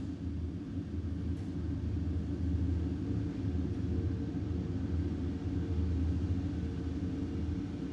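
Empty factory ambience: a steady low rumble and hum of a large industrial space, with a few faint steady tones and no distinct events.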